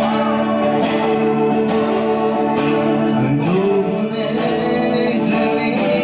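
Live punk band playing a fast number with electric guitar, drums and accordion. A man's voice comes in singing about three seconds in.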